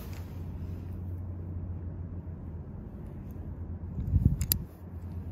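Steady low rumble of wind on the microphone. About four seconds in comes a brief louder scuffle with two sharp clicks, as of handling close to the microphone.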